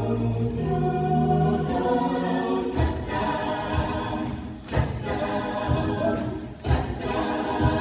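A high school a cappella group singing wordless chords in close harmony, with a held bass note at first, then sharp vocal-percussion hits about every two seconds.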